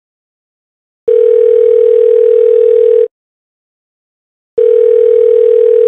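Telephone ringback tone heard from the caller's end, showing the call is ringing through and not yet answered: a steady tone in two rings of about two seconds each, the second starting about a second and a half after the first ends.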